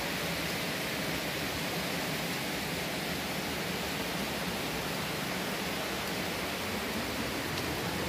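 Steady, even rush of fast-flowing creek water.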